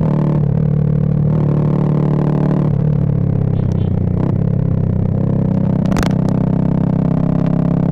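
Bajaj Pulsar 220F's single-cylinder engine running at fairly steady revs through a Race Concepts full-system aftermarket exhaust while riding, with a brief sharp click about six seconds in.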